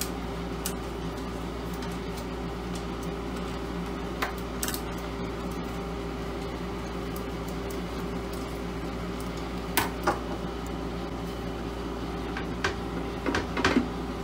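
A screwdriver working screws in a sheet-metal laser housing: scattered light metallic clicks and taps, two sharper clinks about ten seconds in and a quick cluster of clinks near the end, over a steady background hum.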